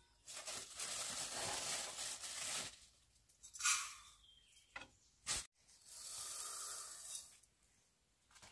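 Water running in two hissing spells, the first about two and a half seconds, the second about a second and a half, with a sharp click between them.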